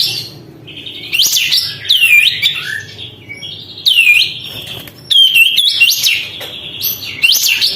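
Kapas tembak bulbul singing in full voice: loud, sharp swooping calls that dip steeply in pitch and rise again, repeated every second or two, with buzzy chatter in between.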